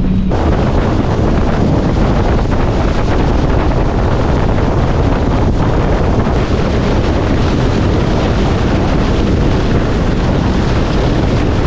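Loud, steady wind buffeting on the microphone mixed with water rushing and spraying along the hull of a small cabin motorboat under way at speed.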